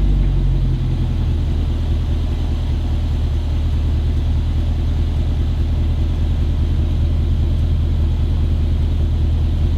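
Land Rover Defender 110's supercharged 5.0-litre V8 idling warm just after a restart. The start-up flare eases down in the first second to a steady, low idle.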